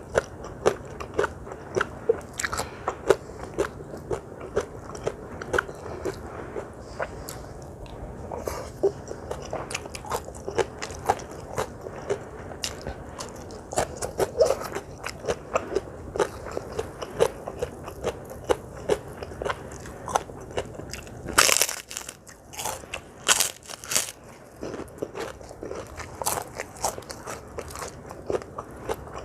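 Close-miked chewing of crunchy food: steady, rapid crisp crunches and mouth sounds, with a few louder, sharper crunching bites a little after two-thirds of the way through.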